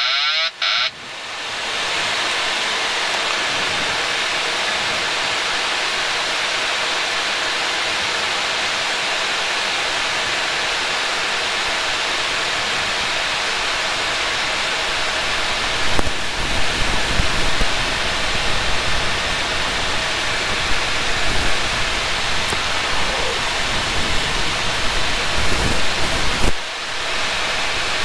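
Steady rushing airflow and engine noise on the flight deck of a Boeing 737-800 on final approach with gear down and flaps 40. A warbling warning tone, the autopilot-disconnect alert, stops about a second in. From about 16 s in, a low, uneven rumble joins the hiss.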